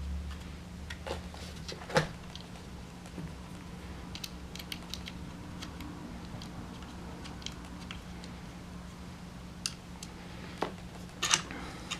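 Small metal hardware being handled: light, irregular clicks and ticks of screws, nuts and an Allen key from a flashlight-mount kit, with a few louder clicks near the end, over a steady low hum.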